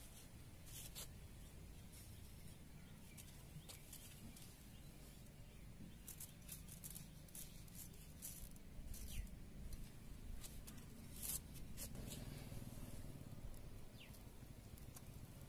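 Faint scattered light ticks and rustles of salt and spice paste being added by hand to masala-coated fish in a steel bowl, most of them between about six and twelve seconds in, over a low background rumble.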